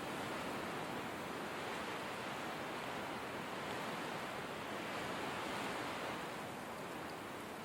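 Blizzard wind: a steady, even rushing noise that swells gently and eases slightly near the end.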